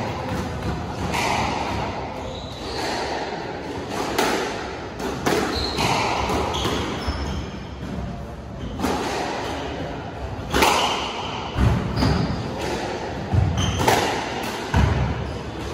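Squash rally: the ball cracking off rackets and thudding against the court walls at an irregular pace, with short high squeaks from players' shoes on the wooden floor.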